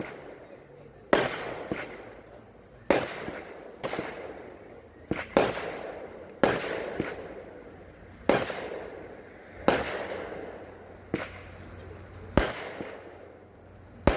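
Aerial fireworks bursting overhead: about a dozen sharp bangs, roughly one a second, each trailing off in a rolling echo.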